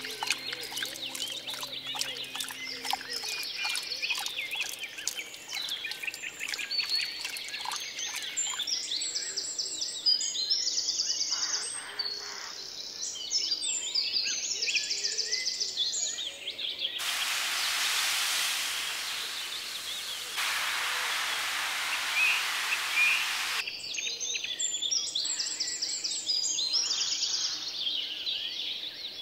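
Small birds chirping and singing in short, rapidly repeated phrases, with a steady rushing hiss for about six seconds past the middle.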